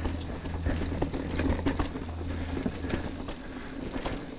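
Mountain bike rolling over a rough dirt trail: irregular clicks, knocks and rattles over the noise of the tyres.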